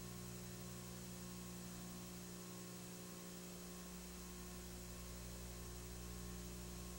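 Faint, steady electrical mains hum with a layer of hiss, unchanging throughout; no other sound.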